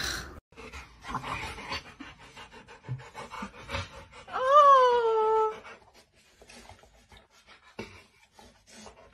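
Rottweiler giving one drawn-out whine about halfway through, rising slightly and then falling, amid soft short noises.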